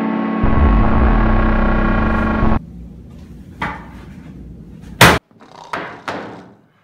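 Sustained ominous synth music with a deep bass drone that cuts off suddenly about two and a half seconds in. A couple of knocks follow, then about five seconds in a single loud bang: a fist slammed down on a wooden table.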